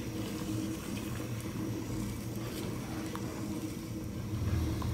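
Salt-water brine heating toward a boil in a stainless steel pot while a wooden spoon stirs it: a steady low simmering noise with a few faint clicks.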